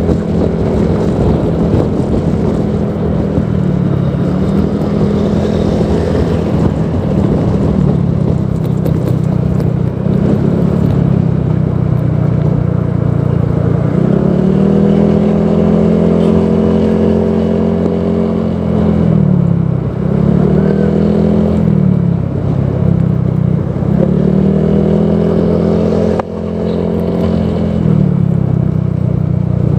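Honda PCX 160 scooter's single-cylinder engine running through a Proliner Neo Silent aftermarket exhaust, its engine speed rising and falling. About halfway through it revs up and holds for several seconds, dips twice in quick succession, then rises again near the end.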